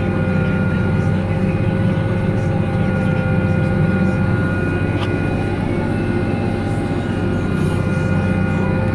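Claas Ares 656 tractor's diesel engine running steadily under load while pulling a seed drill for sowing, heard from inside the cab: a constant low drone with a steady whine over it.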